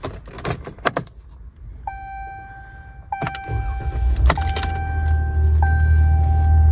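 A Ram 1500 Warlock pickup is started: a few clicks, then the engine starts about three and a half seconds in and settles into a low, steady idle that grows louder. A dashboard chime sounds repeatedly, about once every second and a bit.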